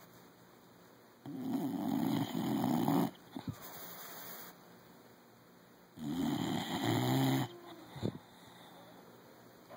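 Sleeping bulldog snoring: two loud snores, each about one and a half seconds long and a few seconds apart, with quieter breathing between them.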